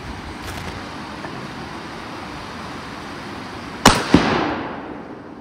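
A single rifle shot from a Saiga carbine, test-firing a newly mounted collimator sight at stones, comes nearly four seconds in, followed a quarter second later by a second, fainter crack and a fading reverberation. Before it there is the steady rush of a fast mountain river.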